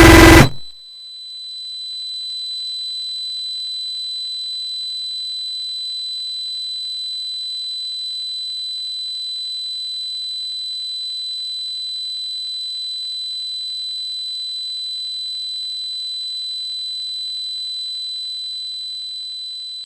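A loud blare cuts off about half a second in, and a steady high-pitched electronic beep tone swells in and holds unbroken for about eighteen seconds, stopping just at the end.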